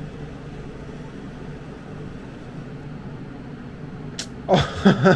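Steady low mechanical hum from a snack vending machine, with a sharp click about four seconds in, followed by a man's voice near the end.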